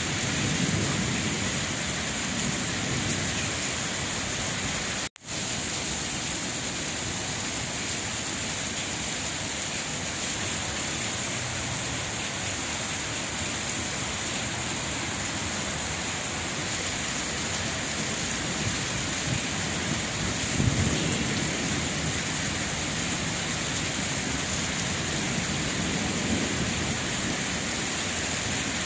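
Steady rain falling, with a few low rumbles swelling under it, the strongest about twenty seconds in. The sound cuts out for a split second about five seconds in.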